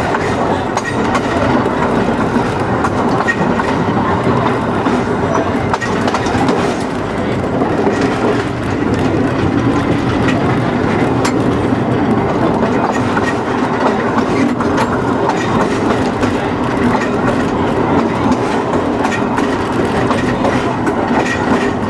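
Heritage electric streetcar rolling steadily along the track, a continuous rumble and rattle of its wheels on the rails heard from the motorman's cab.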